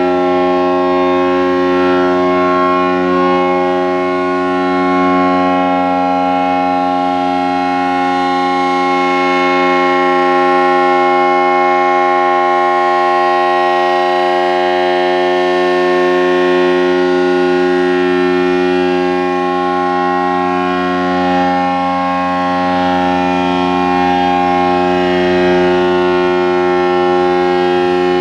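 ACA Allertor 125 outdoor warning siren sounding a steady alert tone, holding one pitch with a full set of overtones and only slight wavers in loudness. It is running slow and low, which is put down to an apparent short in its motor windings.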